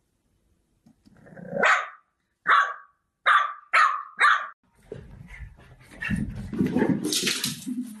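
French bulldog puppy barking five times: the first bark grows out of a low growl, and the other four are short and sharp, about half a second apart. A rougher, lower noise follows for the last few seconds.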